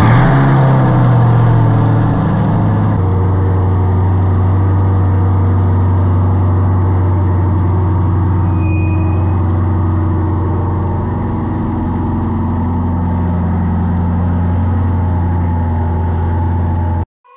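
2021 Chevrolet C8 Corvette's 6.2-litre LT2 V8 just after starting: loud and busy at first, then settling about three seconds in to a steady, even idle as the car rolls slowly out of the garage.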